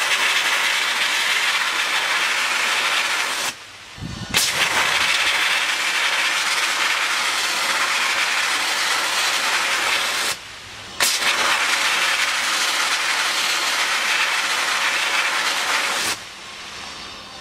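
Sandblasting gun, fed by an air compressor, blasting abrasive onto a Derbi moped frame: a loud steady hiss in three long bursts with two short pauses between them, cutting off near the end.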